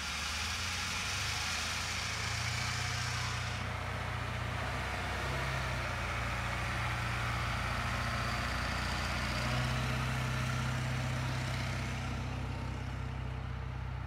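Diesel engines of a rice combine and a loaded bankout wagon running steadily as the wagon pulls away from the combine.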